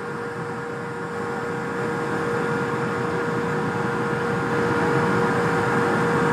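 A steady mechanical hum with one constant tone and a noisy wash, growing gradually louder.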